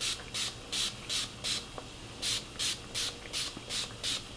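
Fine-mist pump spray bottle of lock spray squirted onto hair in quick repeated pumps, about ten short hisses at two to three a second, with a brief pause about halfway through.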